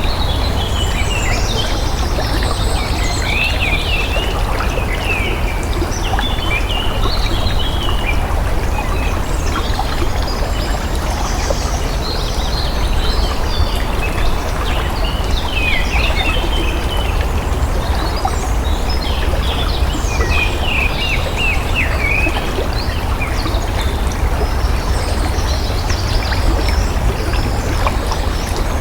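Flowing water running steadily, with birds singing in repeated bouts of quick chirps and trills over it.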